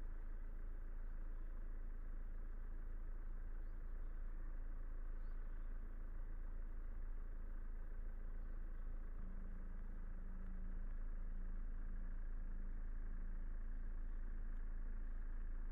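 Car engine and road noise as a steady low rumble while driving slowly. A faint steady tone joins about nine seconds in and breaks into short pulses.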